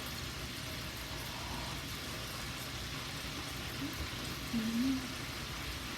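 A steady hiss runs throughout, with a short hummed "mm" from a person, rising and falling, about four and a half seconds in.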